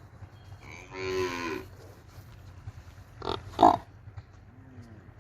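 Domestic buffalo calling: one low, drawn-out moo about a second in, then two short, sharp, louder sounds a little after the middle, the second the loudest.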